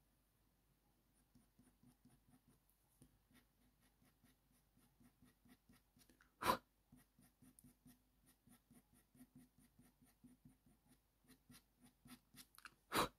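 Faint rapid scraping strokes of a Slice tool drawn over colour-pencil layers on paper to lift out fine white hairs, a few strokes a second. Two louder sharp knocks stand out, one about halfway through and one at the end.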